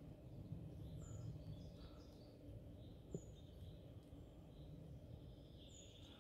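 Faint woodland ambience: small birds give short, high, falling chirps every couple of seconds over a low rumble, with a single soft click about three seconds in.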